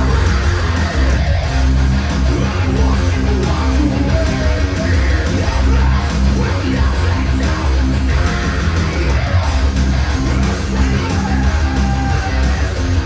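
Heavy rock music with electric guitar, strong bass and a shouted vocal, played loud through Revel M16 loudspeakers driven by a Vincent SP-331 tube-input power amplifier, without subwoofers or room correction.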